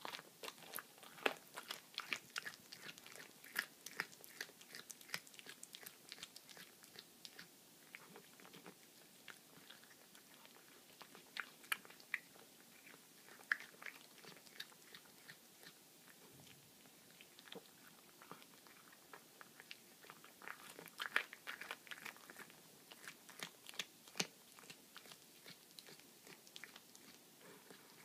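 A domestic cat chewing and crunching through a baby rabbit's bones. Sharp, rapid crunches come in three busy spells, with sparser, quieter chewing between them.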